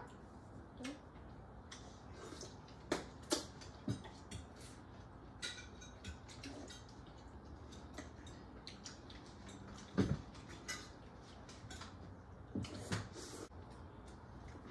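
Scattered light clinks and taps of cutlery on plates over quiet room tone, with a duller knock about ten seconds in the loudest.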